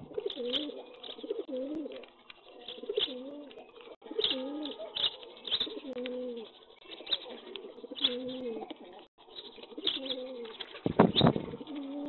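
A flock of rock pigeons cooing over and over, low wavering coos overlapping one another, with many sharp ticks of beaks pecking grain on concrete. A brief louder rush of noise comes about eleven seconds in.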